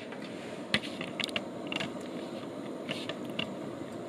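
Portable butane cassette stove burning after being lit: the gas flame runs with a steady rushing noise under a few sharp clicks.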